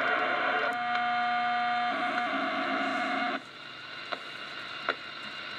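Unidentified data signal received on the 10 meter amateur band through a Kenwood TS-140 HF transceiver, sounding like a digital mode. A dense cluster of tones gives way about a second in to several steady held tones, one of them strong. These cut off suddenly about three and a half seconds in, leaving band noise with a few static clicks.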